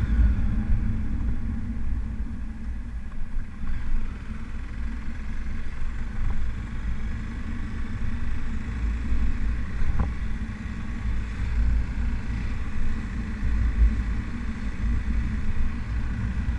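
Motorcycle engine running while riding along a street, under a heavy, fluctuating low rumble of wind on the microphone.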